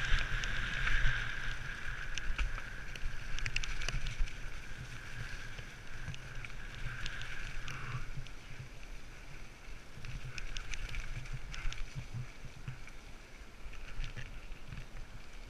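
Mountain bike descending a rough dirt forest trail: rattling and scattered sharp clicks and knocks from the bike over rocks and roots, with low wind rumble on a helmet camera's microphone. A steady high buzz fades out about halfway through.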